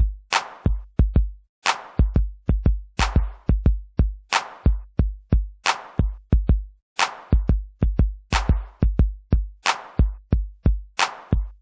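Background electronic music with a steady drum-machine beat: deep kick drums, a sharp snare-like hit about every second and a third, and quick hi-hat ticks between them.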